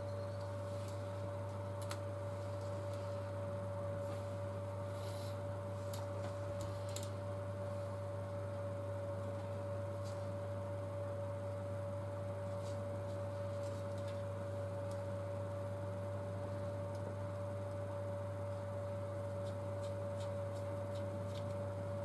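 Steady electrical hum with a constant mid-pitched tone over it, and a few faint light clicks and taps from small parts and a thin tool being handled.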